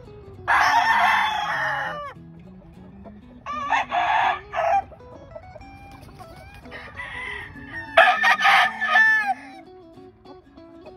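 A rooster crowing four times, harsh calls that trail off downward at the end, the first about a second and a half long and the last the loudest, over faint background music.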